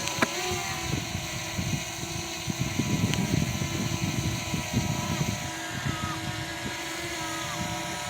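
DJI Mavic Mini drone propellers whining steadily in flight, with gusty wind rumbling on the microphone. A sharp click comes about a quarter second in, and the whine's pitch dips right after it.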